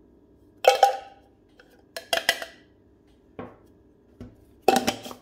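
A handful of sharp clinks and taps from the Wacaco Pipamoka's coffee scoop and basket being handled as coarse ground coffee is spooned into the basket. The loudest come just under a second in and near the end.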